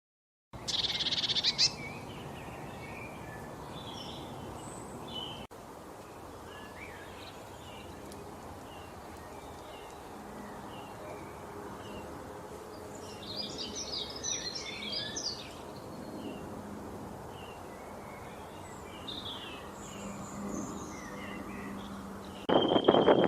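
Several wild birds singing and chirping over a steady outdoor background hiss, with scattered short calls and a busy flurry of chirps in the middle. A loud, close call sounds just after the start, and louder calls begin again near the end.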